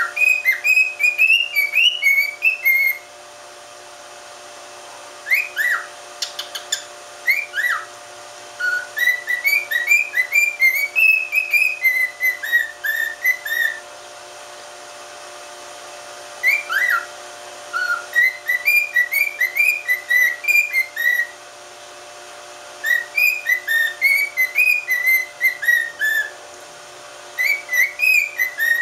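Male cockatiel whistling a song in phrases of quick rising and falling notes, with pauses of a couple of seconds between phrases.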